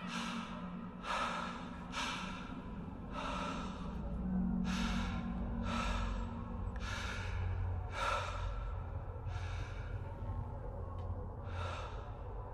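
A man breathing heavily and fast, roughly one loud breath a second, over a low droning music bed.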